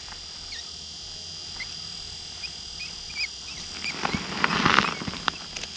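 Quiet outdoor background with a few faint short chirps, then about four seconds in a second-long splashing rustle with a few sharp clicks as a fish is brought up through the ice hole.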